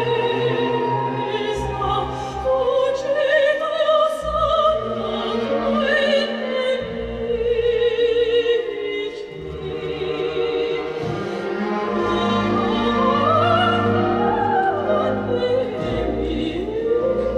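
Classical music: an operatic voice singing long notes with wide vibrato over sustained orchestral accompaniment.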